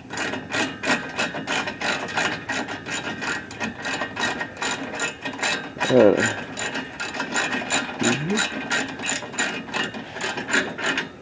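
Socket ratchet with a 19 mm socket clicking steadily, about four clicks a second, as the bull bar's bracket bolts are run down. Two short rising sounds break in about halfway through and again a couple of seconds later.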